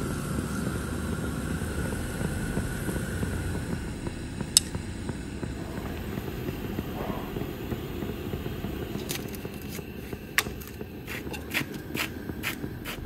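Propane camp-stove burner running with a steady rushing hiss. A single sharp click comes about four and a half seconds in. Near the end comes a quick, uneven series of sharp clicks as a hand spice grinder is twisted over the pot.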